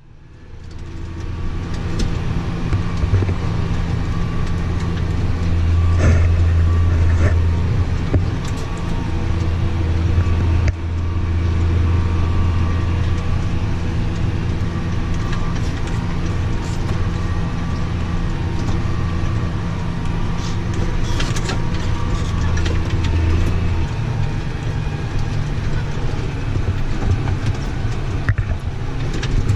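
Large farm machine's engine running steadily, a loud low hum with occasional light knocks and rattles. Its tone shifts about 24 seconds in.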